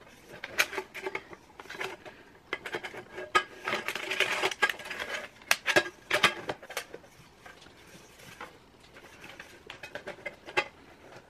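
Metal springform pan being fitted back together by hand: scattered clicks and clanks of the ring and base, with a longer stretch of rattling and scraping about four seconds in.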